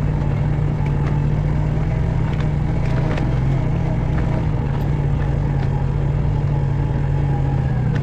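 ATV engine running steadily as the machine drives along a grassy trail, with a few faint ticks scattered through.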